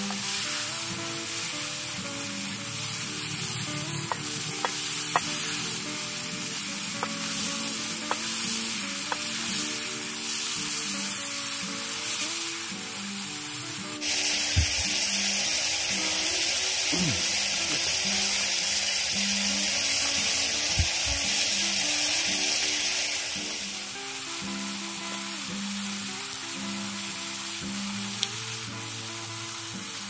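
Greens sizzling as they stir-fry in a small metal pan over a wood fire, with a steady hiss and a few light clicks of the stirring utensil against the pan in the first ten seconds. The hiss gets louder for about nine seconds around the middle. Background music plays throughout.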